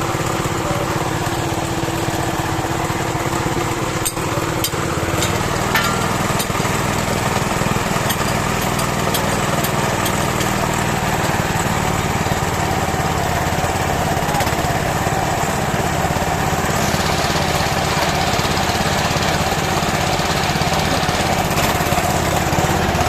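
Small pump engine running steadily, driving a well-drilling rig through a Suzuki Carry gearbox, with a few sharp metallic clicks about four to six seconds in.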